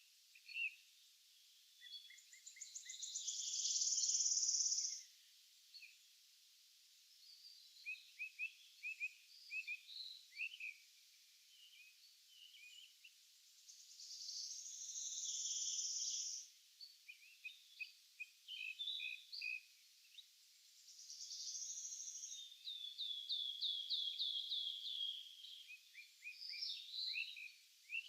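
Several songbirds singing in a forest morning chorus. A high, hazy song of two to three seconds comes three times, roughly every nine seconds, with short chirps from other birds between, and a run of quick repeated notes in the last third.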